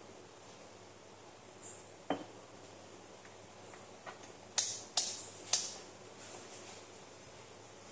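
A single light knock, then about two seconds later three sharp clicks roughly half a second apart as a digital multimeter's rotary selector switch is turned.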